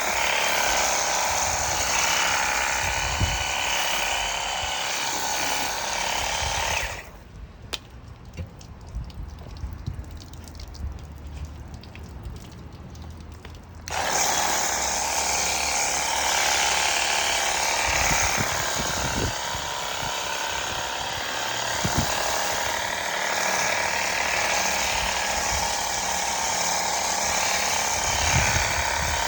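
Ronix 8930 20V cordless pressure washer running, a steady motor-and-pump noise. It cuts off suddenly about seven seconds in and starts again about seven seconds later.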